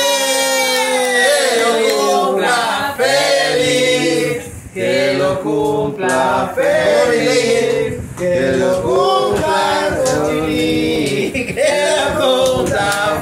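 A small group of voices singing a birthday song together, unaccompanied, with hand clapping.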